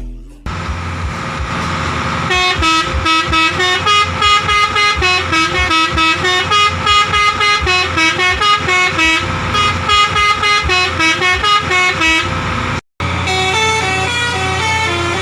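Multi-tone 'telolet' musical air horn on a bus, held on one chord at first, then playing a quick tune of short notes stepping up and down, over a low steady drone. It breaks off with a moment of silence near the end, and a second tune follows.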